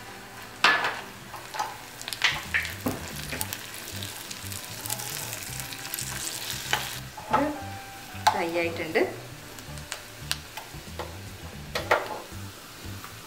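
Cashew nuts and browned sliced onion frying in ghee in a small pan, sizzling steadily. A steel spoon stirs them, knocking and scraping against the pan about ten times.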